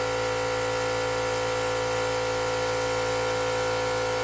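Small electric air compressor running, a steady motor hum with a whirring, mechanical noise and no change in pitch.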